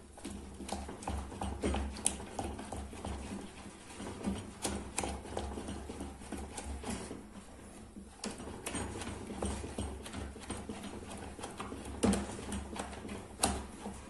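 Wooden spoon stirring a thick, sticky cornstarch paste in a stainless steel saucepan, giving a run of irregular knocks and scrapes against the pot. A steady low hum runs underneath.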